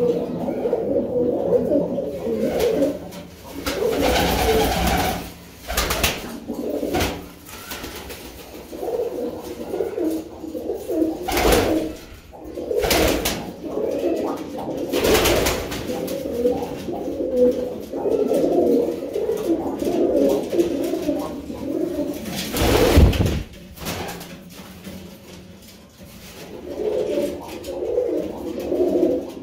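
Several domestic pigeons cooing, low warbling coos overlapping almost without a break, in a small room. A few short, louder swishing sounds cut in along the way, the loudest a little before the end.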